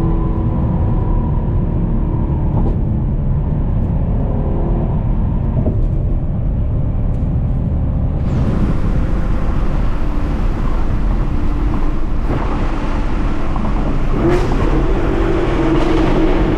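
Chevrolet Camaro SS 1LE's 6.2-litre LT1 V8 running steadily while driving. About halfway through, a loud hiss of road and wind noise comes in. Near the end the engine note climbs as the car pulls harder.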